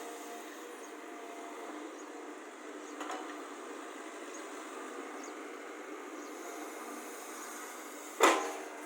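Excavator working: a steady mechanical running noise with faint whining tones, a small knock about three seconds in and a loud sharp bang near the end.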